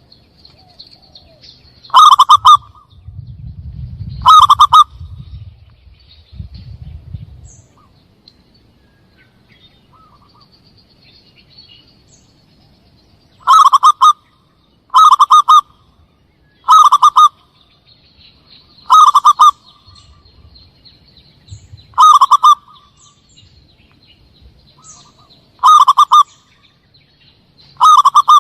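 Zebra dove (perkutut) call played as a hunting lure: nine short, loud cooing calls. Two come near the start and seven more follow in the second half, with gaps of a second and a half to four seconds between them. Faint high chirping runs underneath, and a low rumble sits in the first third.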